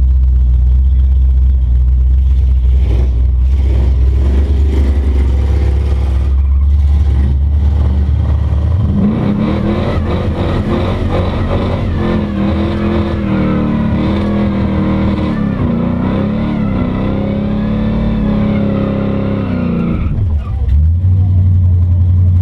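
Drag-racing hot rod engine: a deep, steady rumble for the first nine seconds or so, then a hard acceleration run with the engine note climbing and dipping at each gear change, until the throttle comes off about twenty seconds in.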